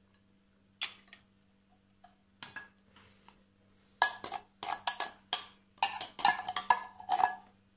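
A metal fork tapping and scraping inside an emptied tin can of sweetcorn, knocking the last kernels out: a few scattered clinks at first, then a quick run of clinks and scrapes in the second half.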